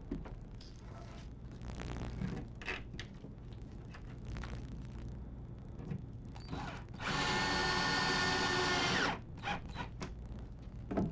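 A cordless drill drives a screw through a small metal bracket of a bookcase restraint strap. It runs steadily for about two seconds past the middle, then stops sharply. Light clicks and handling knocks come before and after.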